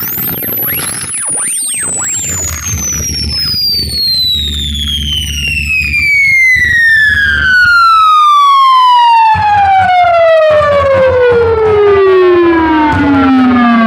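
Sound-check test-tone sweep played over a DJ sound system: a single pure tone glides steadily downward from very high to low across about fourteen seconds, with fainter parallel tones gliding along with it. Underneath runs a loud low bass rumble that cuts out for about a second past the middle.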